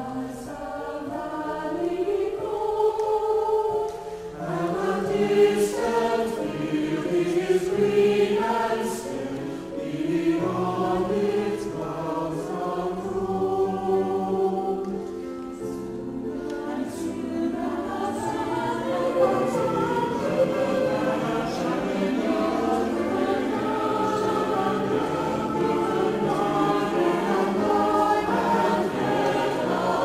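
Mixed choir of men and women singing a choral piece in several parts, with phrases that swell and ease, briefly dipping about four seconds in.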